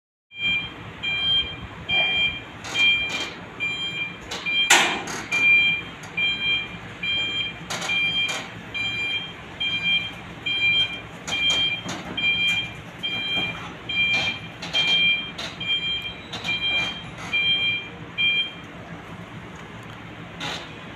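ACE AF30E forklift's reversing alarm beeping steadily, a bit more than once a second, as the forklift backs down a steel mobile dock ramp. The beeping stops about two seconds before the end. Sharp metallic knocks and clanks come from the steel ramp under the wheels, the loudest about five seconds in.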